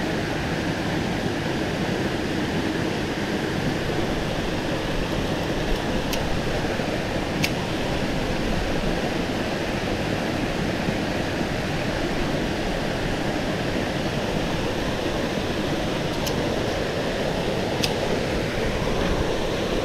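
Steady rushing of flowing stream water, with a few faint ticks scattered through it.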